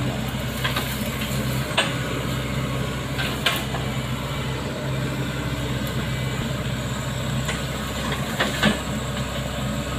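SANY crawler excavator's diesel engine running steadily as the machine sits and creeps in floodwater, with a few short knocks about two, three and a half, and eight and a half seconds in.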